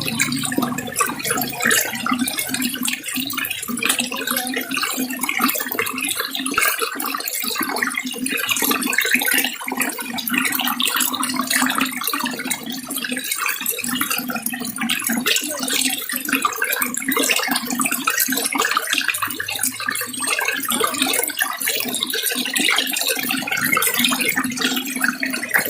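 Water running and splashing steadily, a continuous dense spatter of droplets and flow.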